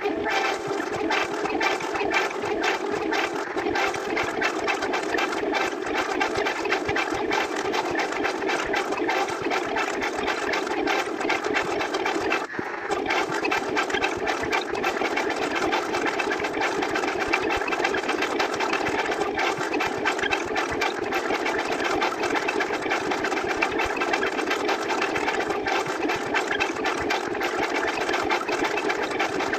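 A continuous rapid rattle of dense clicks, machine-like, with a brief dip about twelve seconds in.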